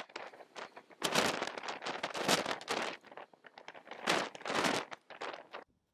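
Marker and eraser working on a whiteboard: a run of irregular scratchy rubbing strokes that stop shortly before the end.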